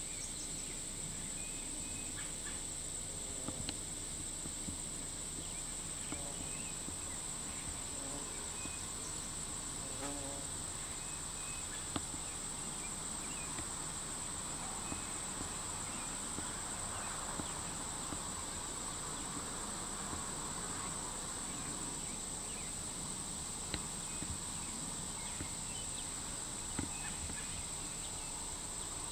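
Steady, high-pitched chorus of summer insects such as crickets, an unbroken drone over faint outdoor background.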